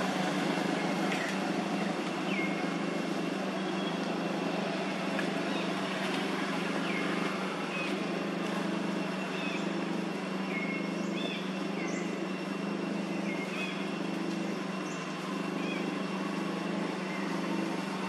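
Steady low mechanical drone, like a motor running without change, with scattered short high chirps over it.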